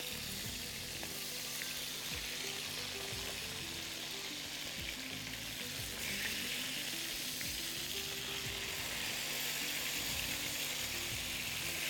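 Whole tilapia frying in hot oil in a pan: a steady sizzle, with light scrapes and taps of a slotted spatula as the fish is turned.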